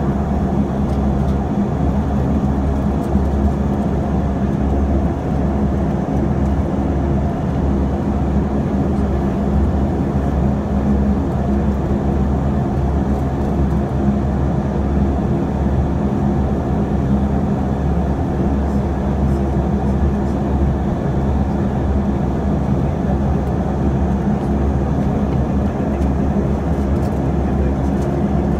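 Saab 340B's twin General Electric CT7 turboprops running at taxi power, heard inside the cabin as a loud, steady low propeller drone with a deep hum.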